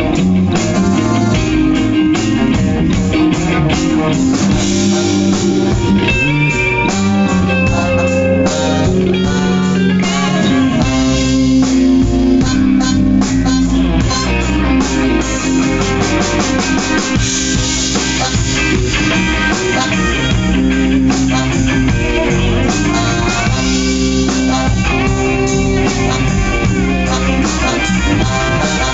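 Two electric guitars playing a blues jam through amplifiers, with a steady beat behind them.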